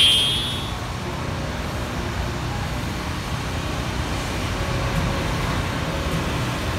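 Steady traffic noise from cars on a busy city street. It opens with the fading tail of a wavering, high-pitched electronic sound effect.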